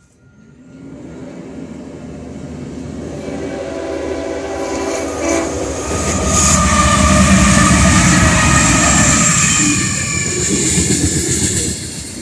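Union Pacific diesel freight train passing at speed. The locomotive rumble builds steadily as the lead unit nears and passes about six seconds in, with steady horn tones over it. It gives way to the rumble and clatter of the freight cars rolling by.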